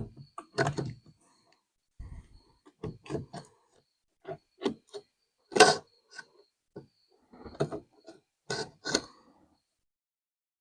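Irregular clicks and knocks of small hard parts being handled and fitted as a radio is put back together, one sharp knock at the start and another loud one about halfway through; the clicking stops near the end.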